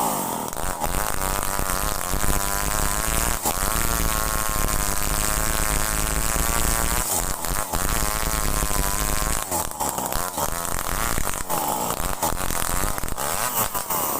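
Chainsaw engine running under load while cutting kulim timber, a steady buzz whose pitch wavers up and down, with a few brief dips and swings in pitch near the end.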